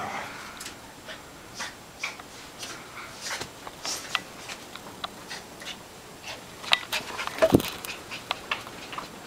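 A toy poodle and a German Shepherd puppy playing: panting, with scattered quick taps and scuffles, and a burst of louder knocks about seven to eight seconds in.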